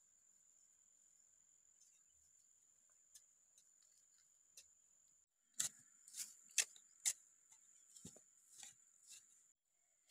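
A metal digging blade chopping into dry, crumbly soil: a run of about eight sharp strikes, roughly two a second, starting about halfway through. Before the strikes, only a faint steady high insect drone and a few light ticks.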